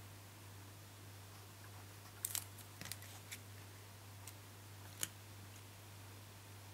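A handful of short, light clicks and taps of paper and cardstock being handled and pressed into place, clustered a couple of seconds in, over a faint steady low hum.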